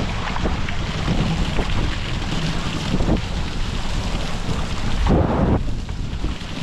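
Strong wind buffeting the microphone over water sloshing around a small open boat: a steady rush with a heavy low rumble and a brief louder surge about five seconds in.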